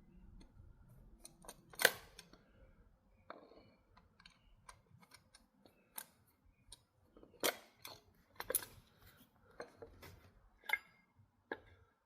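Irregular clicks and knocks of metal rifle parts and a screwdriver being handled while the stock is fitted onto a Remington 760 rifle. The loudest knock comes about two seconds in.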